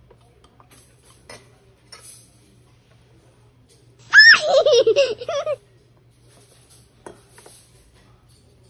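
A young child's high-pitched laughter and squealing, wavering in pitch, lasting about a second and a half starting about four seconds in. Faint light clinks of a metal spoon on dishes come before and after it.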